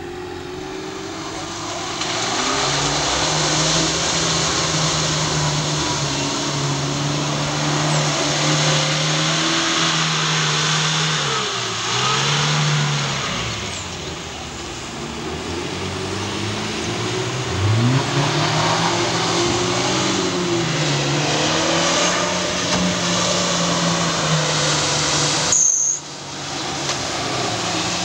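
Off-road 4x4 engines running hard and revving up and down under load, one sharp rev-up about two-thirds of the way through, over a steady hiss of splashing water and tyres. The sound cuts off abruptly near the end and then picks up again.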